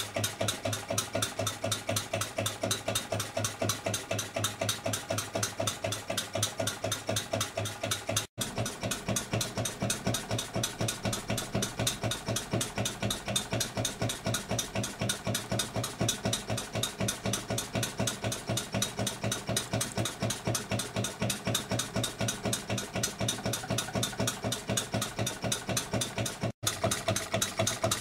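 Home-built horizontal single-cylinder model diesel engine (20 mm bore, 44 mm stroke), converted from a hot bulb engine to true compression ignition, running steadily with an even, rapid beat of firing strokes.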